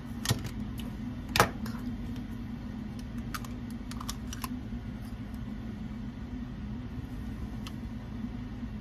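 Scattered light clicks and taps of plastic Nerf blaster parts being handled and tried against the blaster shell, with a sharper click about a second and a half in. A steady low hum runs underneath.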